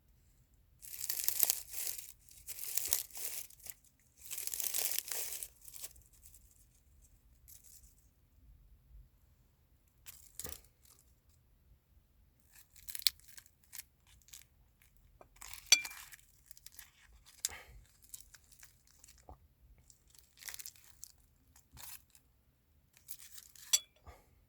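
Crinkly packaging being torn and crumpled open in three loud, noisy bursts, then scattered light clicks and clinks of tableware at the meal.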